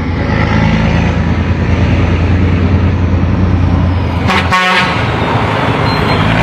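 A steady low engine hum under a mix of outdoor noise. About four and a half seconds in, it cuts out briefly with a short jolt, then comes back.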